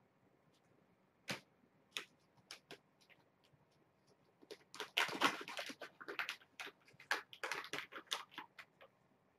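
Crinkling and rustling of a plastic treat packet being handled: a few separate crackles about a second apart, then a dense run of crinkling for about four seconds.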